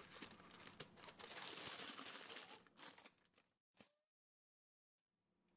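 Parchment paper crinkling as it is lifted, loaded with dry beans used as pie weights, out of a blind-baked pie crust and into a colander. The crinkling fades out about three seconds in, with one short rustle just before a moment of total silence.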